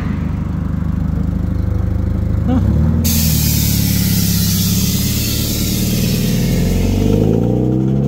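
A lowered sports coupe on air suspension idling, then pulling away. Its engine note rises a little about two and a half seconds in. A loud hiss starts suddenly about three seconds in and fades out over the next four seconds. Near the end the engine revs up as the car drives off.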